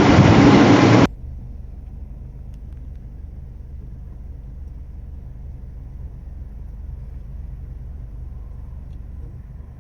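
A loud rushing noise cuts off abruptly about a second in and gives way to a quiet, steady low rumble of a car on the road.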